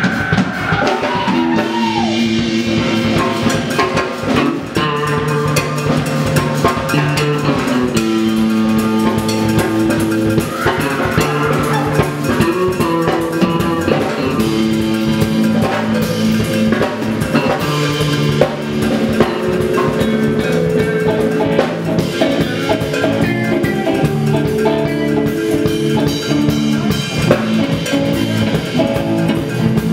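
Indie rock band playing live: drum kit and electric guitars together in a loud, dense passage with held notes over a steady beat.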